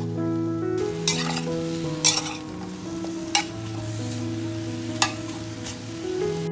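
A spatula stirring and scraping ginger slices in a hot pan as they stir-fry with a light sizzle, several sharp scrapes standing out. Soft background music plays under it.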